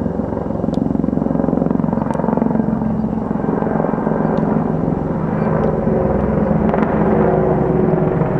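Military helicopter flying overhead, its rotor beating in a steady, rapid chop.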